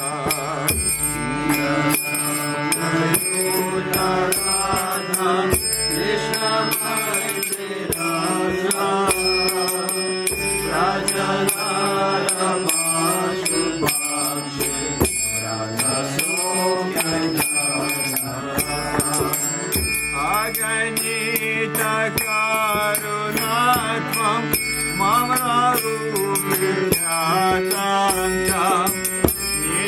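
Devotional bhajan: a harmonium playing held chords under voices singing a wavering, ornamented melody, with karatalas (small hand cymbals) ringing in a steady beat.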